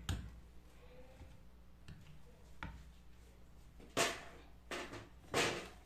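A few scattered short knocks and clicks of a wire whisk against a plastic mixing bowl of muffin batter as it is knocked and set down in the bowl, the loudest about four seconds in and again near the end.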